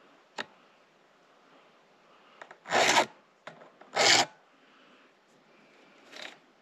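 Flat file scraping down the rakers (depth gauges) of a chainsaw chain through a depth-gauge guide, lowering rakers that stand too high. Two loud strokes about a second apart in the middle, a fainter third stroke near the end, and a short click about half a second in.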